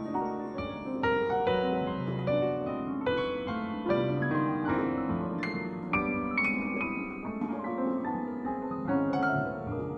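Instrumental keyboard music in a piano sound: a melody of struck notes about twice a second over held lower notes.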